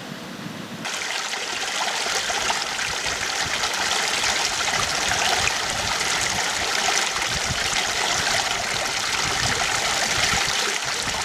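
Mountain creek rushing over rocks: a steady, loud hiss of running water that begins abruptly about a second in.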